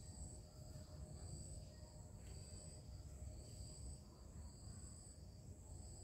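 Faint, high-pitched insect chirring that swells and fades slowly, over a low rumble.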